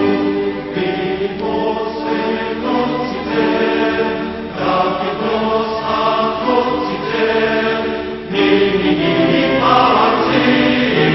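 Background choral music: a choir singing slow, sustained chords.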